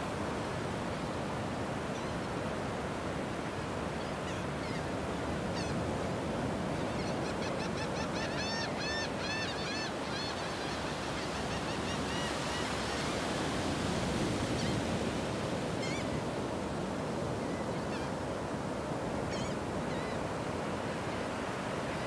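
Ocean surf breaking and washing up a sandy beach, with gulls calling over it: a quick series of repeated calls around the middle, then a few single calls later.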